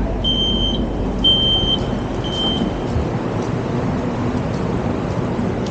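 LRT train door warning beeper sounding three evenly spaced high beeps about a second apart, over the steady low rumble of the train and station.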